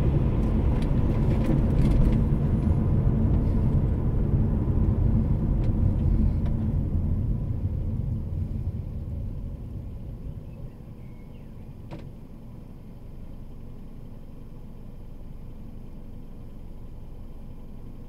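Car driving, heard inside the cabin: engine and tyre noise on the road, dying away as the car slows and stops at about ten seconds in, then the engine idling quietly. A single sharp click about twelve seconds in.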